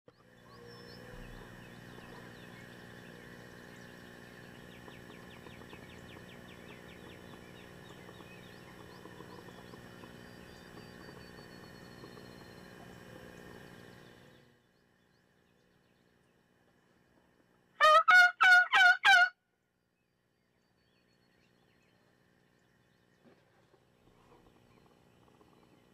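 A wild turkey gobbler gobbles once, loud and close, a rapid rattling call lasting about a second and a half about 18 seconds in. Before it, quiet music with held tones plays and cuts off abruptly about halfway through.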